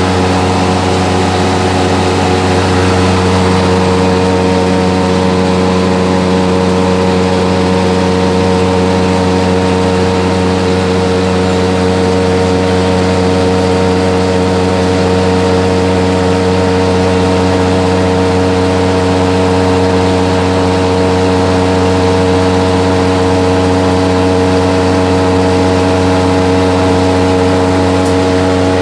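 Electric fan running, its motor giving a loud, steady hum of several held tones over a whoosh of air.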